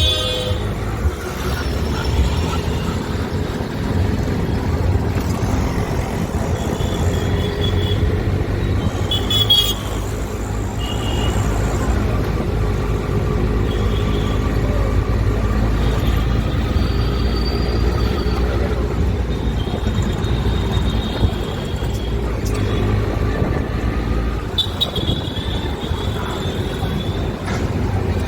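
Busy street traffic: a steady rumble of engines with horns tooting now and then, and people's voices in the background.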